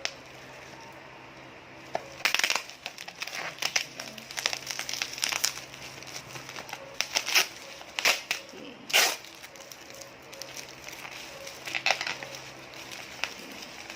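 Plastic and cardboard packaging handled and opened by hand: irregular crinkling and crackling, beginning about two seconds in.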